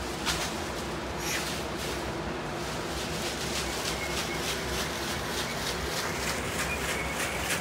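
A bundle of fresh leaves shaken and swept over a person's head in an Amazonian limpieza (shamanic cleansing), rustling in a fast, even rhythm of several swishes a second.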